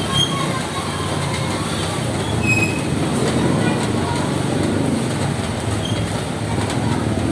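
Steady rain falling on a roof, a continuous even patter.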